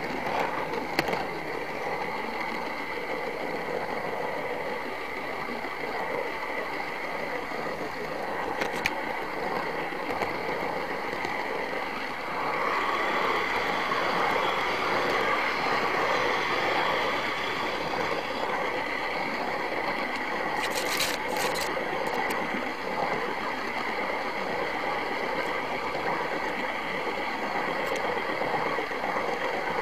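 OO gauge model train running on its track, a steady whir from its small electric motor and wheels, with a few sharp clicks. It grows louder about twelve seconds in as the train runs into a tunnel.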